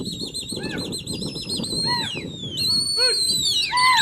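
Pigeon fanciers whistling loudly at their flock: a rapid, warbling trilled whistle held at one high pitch, with several more whistles swooping sharply downward over it.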